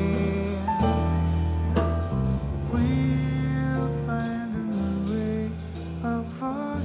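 Live jazz: a man singing a slow song, accompanied by grand piano, electric bass guitar and drum kit.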